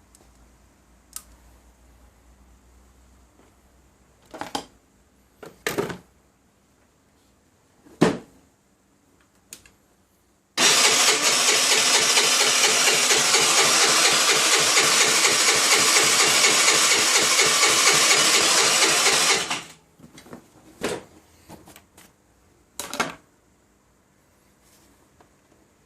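Starter cranking the Baotian Tanco's 50cc four-stroke scooter engine for about nine seconds in a quick, even pulse, then stopping abruptly without the engine catching: a hard start. A few short knocks come before and after.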